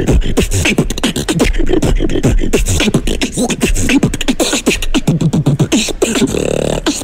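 Human beatboxing into a handheld microphone: rapid mouth-made snares, clicks and bass kicks, with a buzzing pitched hum near the end.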